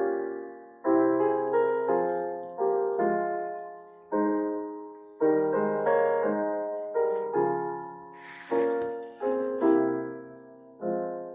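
Solo piano playing slow, gentle chords, each struck and left to ring and fade before the next.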